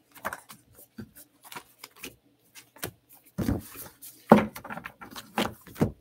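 Tarot cards being handled on a tabletop: a string of light clicks and taps, then several louder knocks in the second half.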